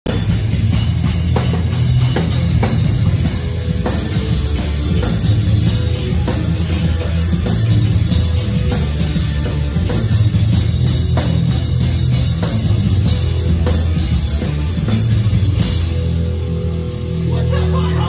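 A New York hardcore band playing live and loud: pounding drum kit under heavy guitars and bass, an instrumental intro with no vocals.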